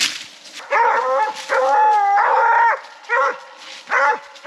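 Coonhounds barking treed: a run of loud, howling bawls, with the longest about two seconds in.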